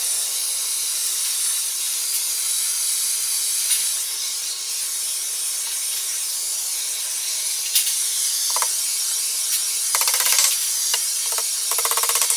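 Steady hiss, with short, fast rasping bursts about ten seconds in and again near the end.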